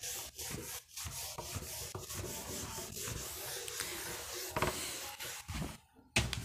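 Rapid scratching and rubbing strokes against a hard writing surface, stopping shortly before a single sharp knock near the end.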